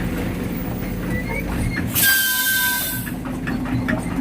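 Heavy diesel engine running steadily, with a loud hiss of released air and a thin squealing tone about two seconds in that lasts about a second.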